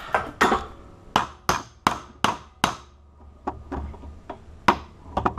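Repeated sharp metal clacks and knocks, about two or three a second with a brief pause midway, as hydraulic bolt cutter jaws are worked against a thick padlock shackle that will not fit between them.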